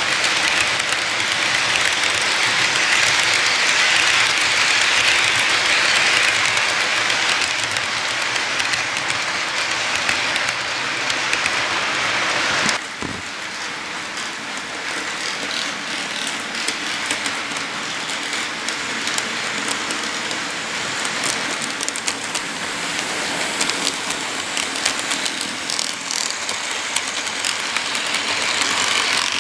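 Model train freight cars rolling past close by: a steady hiss of small metal wheels running on the track. The sound drops suddenly about 13 seconds in, after which fine irregular clicking from the wheels over the rails comes through the hiss.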